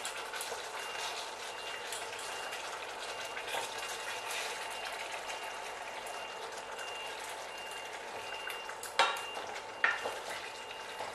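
Rohu fish curry in a yogurt gravy sizzling and simmering in a stainless steel pan on low heat, with a steady hiss. A wooden spatula scrapes and taps the pan as the fish pieces are turned, with two sharper knocks near the end.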